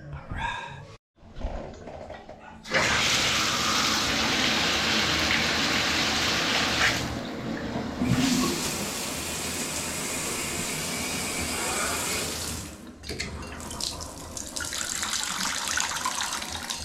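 Water running hard from a shower through a repaired Moen shower valve. It starts about three seconds in and cuts out briefly near the middle and again toward the end.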